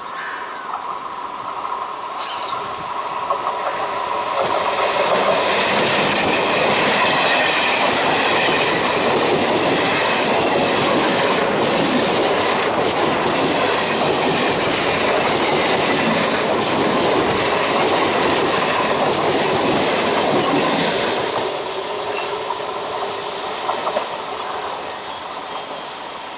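Chennai suburban electric multiple unit (EMU) local train passing close by, its wheels clattering over the rail joints. The sound builds over the first few seconds, stays loud and steady for about fifteen seconds, then drops off.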